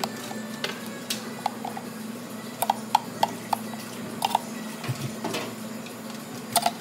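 A metal spoon tapping and scraping against a clear plastic blender jug and cups as a thick blended drink is scooped out, in scattered sharp clicks. A steady low hum runs underneath.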